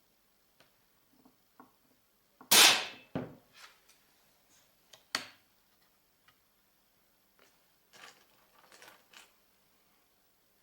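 A Lesnik PCP air rifle fires one shot, a sharp crack about two and a half seconds in, with a second, quieter hit just under a second later. A sharp click follows a couple of seconds on, then lighter clicks and knocks.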